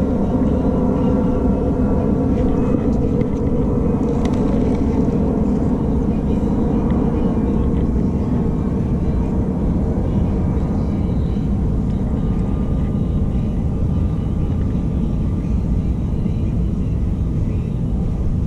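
Steady low wind rumble on the microphone, mixed with the hum of a distant engine whose tones fade over the first several seconds as it passes.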